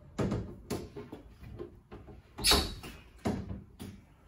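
Nabis Universal P glass bath screen being handled into position against the wall: a string of knocks and scraping rubs as the panel is pushed and shifted, the loudest knock about two and a half seconds in.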